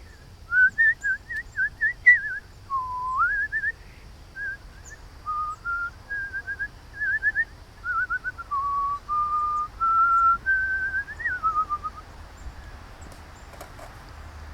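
A person whistling a long run of clear notes to call the birds: quick groups of short rising chirps, one low note that sweeps up, then a string of held, slightly wavering notes at stepped pitches like a simple tune, stopping about two seconds before the end.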